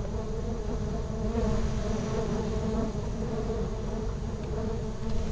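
Steady buzzing of a crowd of bees swarming around their opened nest as the colony is being gathered up.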